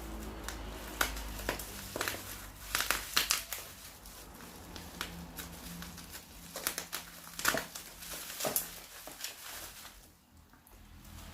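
Plastic packaging crinkling and crackling as it is handled and unwrapped, in irregular bursts of rustles and sharp crackles.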